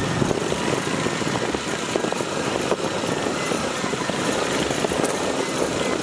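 Motorcycle engine running steadily, with a rapid rough flutter, while riding along a bumpy dirt track.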